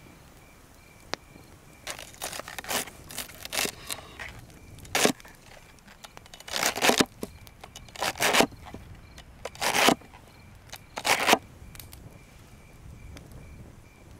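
Large knife chopping fresh celery on a wooden board: crisp crunching cuts, about eight strokes roughly a second apart, stopping a couple of seconds before the end.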